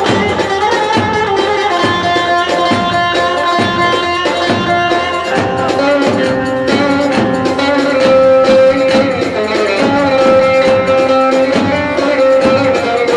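Turkish folk dance music: a davul bass drum beats a steady rhythm, about two strokes a second, under a held melody line.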